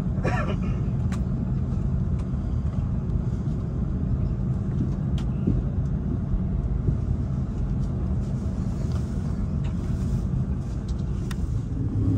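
Cabin noise of an Airbus A330-200 taxiing, heard from a seat over the wing: a steady low rumble and hum from the engines at idle.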